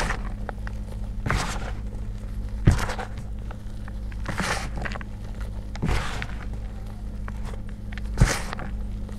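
Re-formed blocks of gym chalk crumbling and crunching as hands squeeze them into powder: about six soft crunches, two of them with a sharper thud, over a steady low hum.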